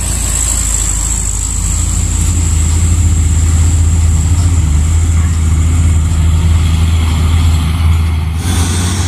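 Diesel dump trucks passing close by: a loud, steady low engine rumble with a thin high whine over it. The sound changes abruptly near the end.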